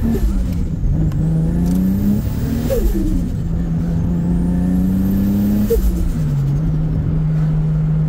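Toyota Supra engine heard from inside the cabin while driving. Its note climbs about a second in, holds steady, then drops near six seconds in and settles lower. It runs clean, its misfire cured by a replaced ignition coil.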